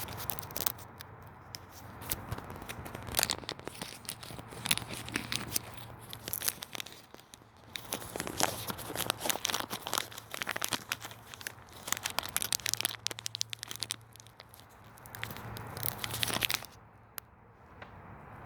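Plastic packaging of hardware crinkling and tearing, with irregular clicks and rattles of handling, busiest about halfway through and quieter near the end.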